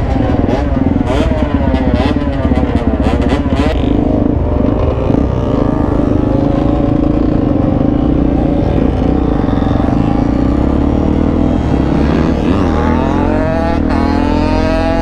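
Suzuki DR-Z400SM supermoto's single-cylinder four-stroke engine being ridden and revved, with other dirt bikes running close by. The pitch shifts up and down through the first few seconds, holds steadier in the middle, then rises as the bike accelerates near the end.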